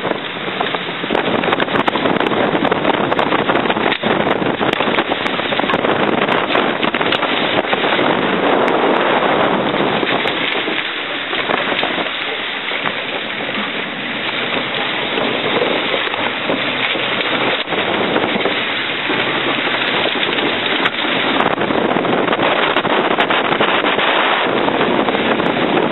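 Wind buffeting the microphone in stormy weather: a loud, continuous rushing noise that swells and eases.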